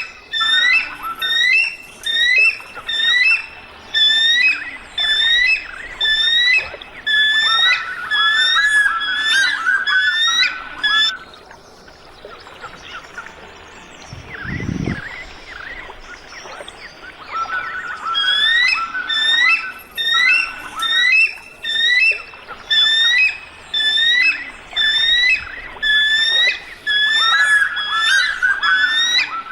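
Eagle calling: runs of high, piping whistled notes, about two a second, each sliding upward, with a pause of several seconds in the middle. A short low thud falls in the pause.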